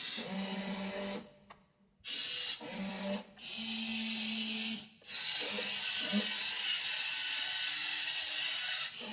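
Small electric motors and gearboxes of a WLtoys RC excavator whirring in short runs, stopping and starting four times as the arm and tracks are worked.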